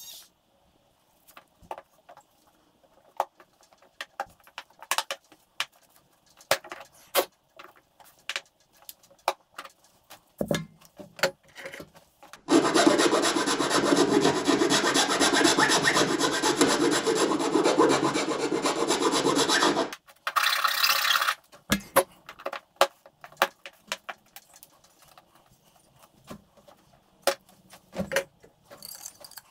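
Scattered handling clicks and knocks, then a Dremel rotary tool runs loud and steady for about seven seconds from about twelve seconds in, grinding to open up the horn's mounting hole. A short harsher burst follows it, then more clicks.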